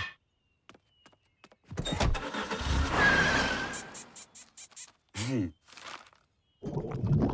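Cartoon sound effects: a loud rumbling, engine-like noise lasting about three seconds with a quick run of ticks near its end, then a short pitched sound and, after a pause, more rumbling noise.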